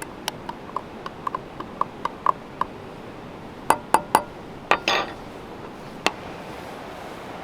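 Glass jars and utensils clinking while being handled: a quick run of light, ringing clinks, then a few louder sharp knocks and a short scrape, and one more knock near the end.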